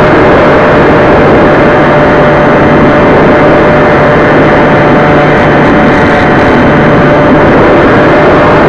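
Electric motor and propeller of a Bixler foam RC plane running steadily in flight, mixed with heavy wind rush on the onboard microphone: a loud, constant rushing noise with a steady hum running through it.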